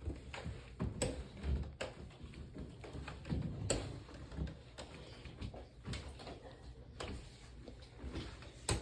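Uneven steps of an iWalk 3.0 hands-free knee crutch and a foot on a hard floor: irregular low thumps and sharp knocks about once a second.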